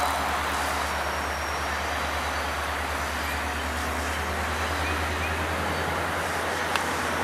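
Distant diesel locomotive working a short passenger train, a steady low engine rumble under an even hiss.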